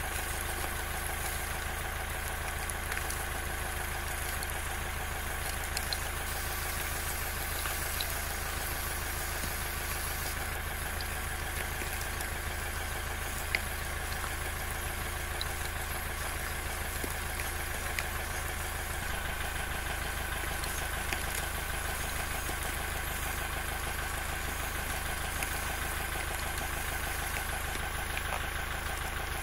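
Small motor and cardboard gearing of a model bucket-wheel trencher running steadily as the wheel digs sand, with a few faint clicks, one sharper about 13 seconds in.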